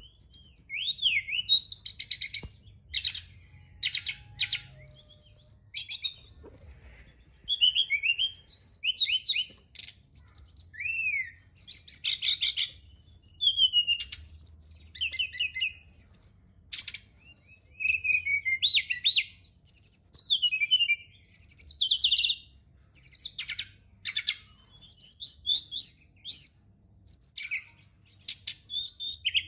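Brown-chested jungle flycatcher (SRDC) singing a fast, varied song of short whistled phrases and trills in quick succession, with brief pauses between bursts.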